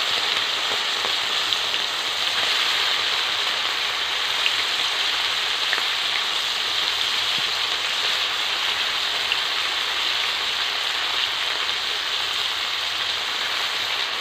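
Raw salted prawns sizzling in hot oil in a kadai: a steady frying hiss with a few small pops and spatters as they shallow-fry.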